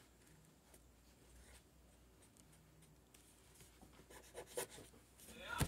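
Faint scratching of strokes being made on paper during painting, growing busier in the last second or two, with one sharp knock just before the end.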